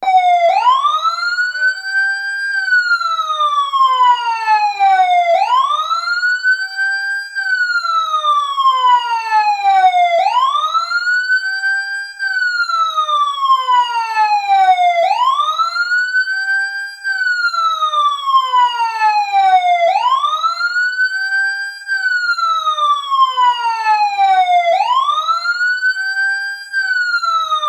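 Fire truck siren wailing, starting suddenly and sweeping up quickly, holding briefly at the top, then falling slowly, about once every five seconds: the alarm that the countdown timer has reached zero.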